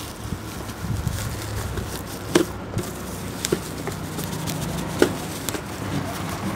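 Hands unpacking and handling a new automatic blood pressure monitor and its packaging: soft handling noise with three sharp clicks or taps.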